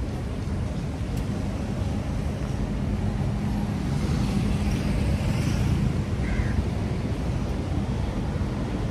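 Street traffic: cars and motorcycles idling and moving slowly past, a steady low rumble with an engine hum. A vehicle passes close and louder around the middle.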